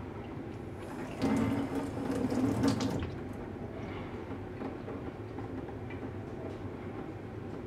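Water running and splashing into a stainless steel sink for about two seconds, starting about a second in, over a steady background hum.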